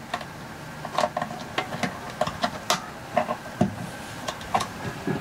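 A dozen or so sharp, irregularly spaced plastic clicks and taps as fingers press decorative hinge-cover clips on a toilet seat and snap them into place.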